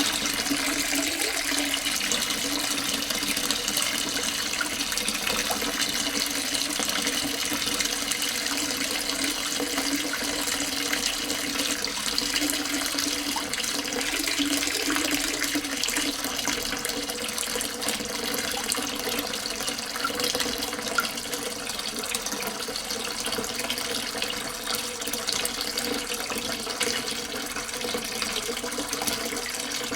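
Water pouring steadily from a tap into a half-full sink, splashing and bubbling into the standing water without a break.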